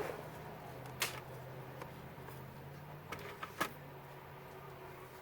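A few short, sharp clicks and taps, the loudest about a second in and near the middle, over a faint steady low hum.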